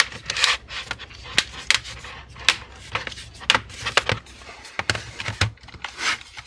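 Bottom cover of an Asus G513QY gaming laptop being pressed back onto the chassis, its clips snapping into place in a run of sharp, irregular clicks with handling noise between them.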